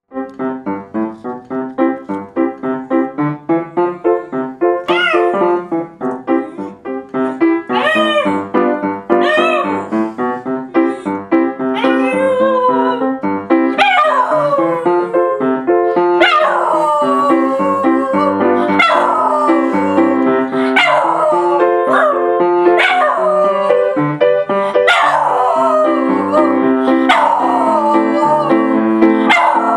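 Upright piano played throughout while a small dog howls along with it. The howls start about five seconds in, then from about fourteen seconds come every two seconds or so, longer and louder, each sliding down in pitch.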